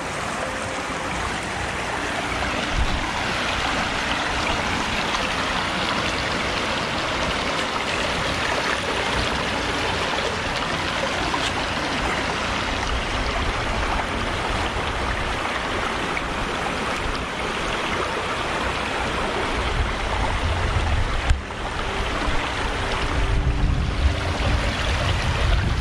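Stream water flowing steadily, an even rushing noise. Near the end a low rumble of wind on the microphone joins it.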